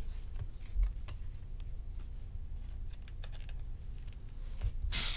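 Baseball trading cards being flicked and shuffled through by hand, small soft clicks of card edges against one another, with a brief louder crinkle of a foil pack wrapper near the end.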